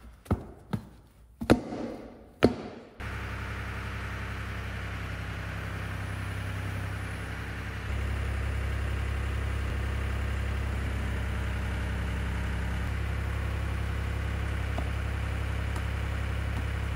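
About four dull thumps as a foot stomps on a deflated ATV tire, then a tractor engine running steadily, stepping up louder about eight seconds in as the front loader bucket presses down on the tire to break its bead.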